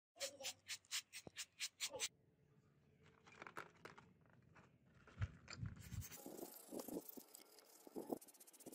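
Hand trigger spray bottle pumped rapidly, about four squirts a second, for the first two seconds. After a quiet stretch with a couple of dull bumps, a stiff brush starts scrubbing the wet plastic parts of a die-cast model car.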